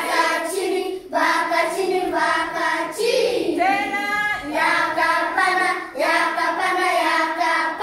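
A class of schoolchildren singing together in short phrases with brief breaks between them.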